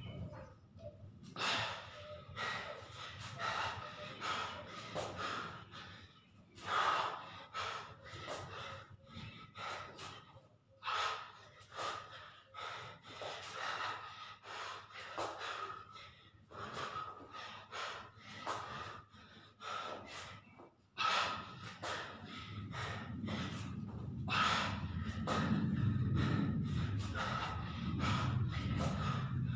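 A man breathing hard and fast from the exertion of push-ups, sharp breaths through nose and mouth about one and a half times a second. A faint steady high tone runs underneath.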